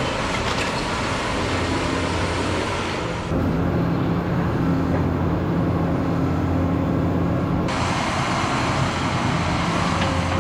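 Diesel engine of a Cat 320E excavator running steadily, at first mixed with a heavy rush of wind-like noise. About three seconds in the sound switches abruptly to a clear, steady engine hum, and the rushing noise returns near eight seconds.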